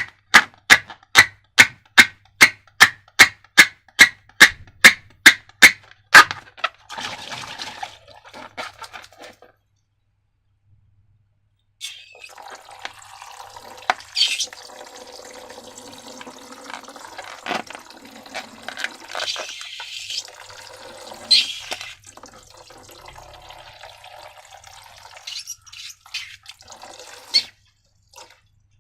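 A quick, even run of sharp clicks, about three a second, for the first six seconds. Then, after a short pause, thick slime is stirred and poured with wet, sticky sounds and a few sharper smacks.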